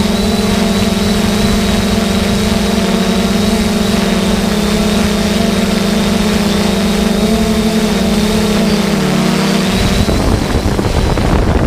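A steady motor hum with a thin high whine above it. It dips slightly in pitch and cuts off near the end, leaving a rushing noise at about the same loudness.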